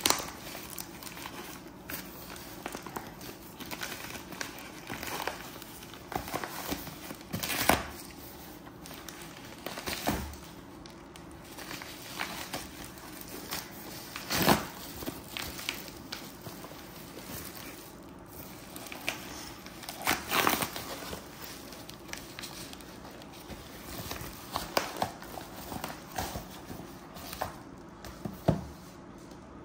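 Padded plastic mailer crinkling and tearing as it is ripped open by hand, in irregular rustles with a few short, louder rips.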